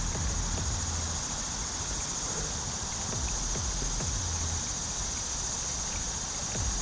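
A steady, high-pitched drone of summer insects, with a low rumble that swells now and then and a few faint ticks.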